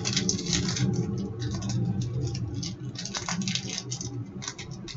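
Trading cards being slid and flipped through by hand, a dense, irregular run of short scrapes and flicks.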